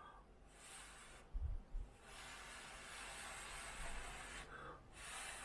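Someone blowing on a spoonful of hot baby food to cool it: three breathy puffs, the middle one long. Two dull low bumps come about a second and a half in.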